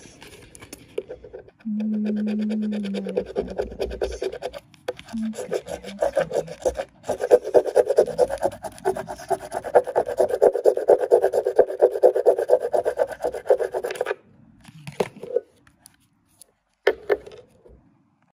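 Fingernail rapidly scratching the coating off a paper scratch-off lottery ticket: a fast, continuous rasping rub of many strokes a second that stops about fourteen seconds in. A short steady low hum sounds about two seconds in.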